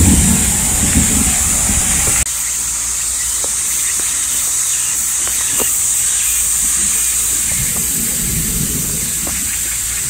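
Thunder rumbling loudly and dying away, cut off abruptly about two seconds in. After that comes a steady high-pitched hiss with a few faint clicks, and a soft low rumble near the end.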